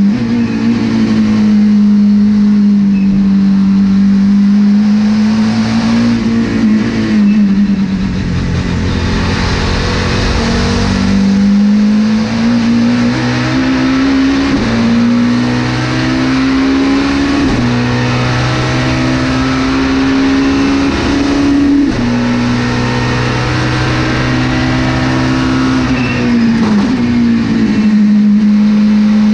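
Volvo S40 TWR supertouring race car's five-cylinder engine at speed, heard from inside the stripped cockpit. The engine note holds fairly steady at first, then climbs and drops sharply at each gear change, several times in the second half.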